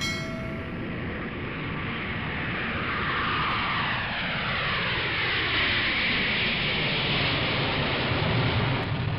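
Jet airliner taking off: a steady rush of engine noise that grows louder, with whining tones that fall in pitch over several seconds as the plane goes by. A short chime sounds at the very start.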